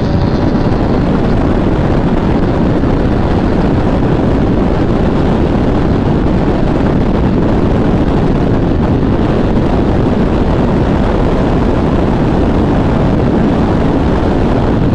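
Steady, loud wind rush over the microphone of a Bajaj Pulsar NS200 ridden at top speed, with its single-cylinder engine held at high revs underneath. The sound stays even, with no gear changes or rises in pitch.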